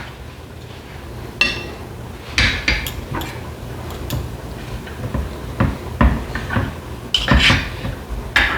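Kitchen clatter: metal utensils and dishes clinking and knocking against each other, about eight separate knocks spread through the stretch.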